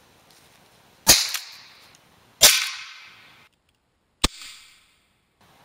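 Three sharp cracks, each trailing off, the last one shorter: party-popper explosive charges set off by a mousetrap's snapping spring as the tripwire is pulled.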